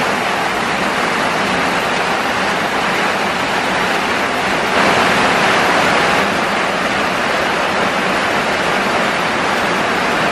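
Heavy tropical downpour: a steady hiss of rain falling on corrugated metal roofing and muddy ground, swelling a little about five seconds in.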